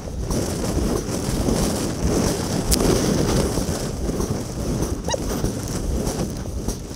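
Sped-up (four times) on-board sound of a racing double scull: wind buffeting the microphone and water rushing past the hull, with quick repeated knocks from the oars working in their oarlocks.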